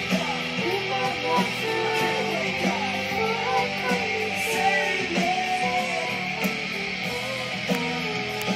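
Background music: a guitar-led song with held, gliding melody notes over a steady accompaniment.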